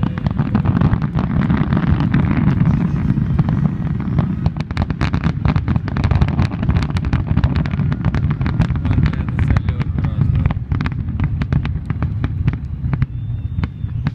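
Aerial fireworks shells bursting in a rapid barrage of booms and crackles during the finale of a display. The barrage thins out about twelve seconds in.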